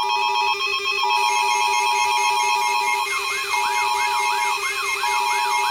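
Electronic alarm tones: long beeps broken by short gaps over a steady lower tone. About three seconds in, a fast rising-and-falling siren sweep joins them, repeating roughly three times a second.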